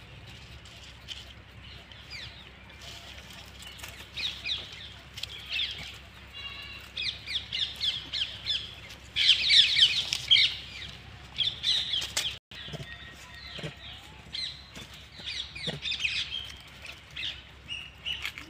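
A rapid series of short, high-pitched animal chirps and squeaks that come in clusters, loudest and densest about halfway through.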